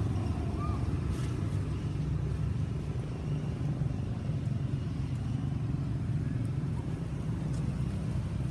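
Steady low rumbling noise throughout, with no distinct beats or pitch.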